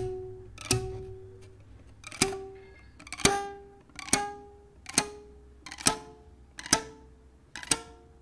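Rubber band stretched over a cardboard chalk box between two sticks of chalk, plucked about nine times, roughly once a second. Each pluck is a short twang with a clear note that dies away within a second, and the note creeps higher over the series.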